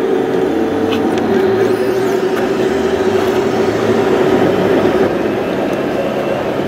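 Hydraulic pump of an RC model excavator running with a steady whine while the machine swings and digs. The whine steps slightly lower in pitch about a second in.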